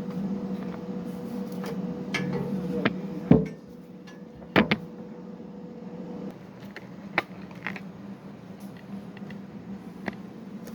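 Scattered clicks and knocks of hand tools and wires being handled during electrical hookup work, with a steady hum underneath that drops away about three and a half seconds in.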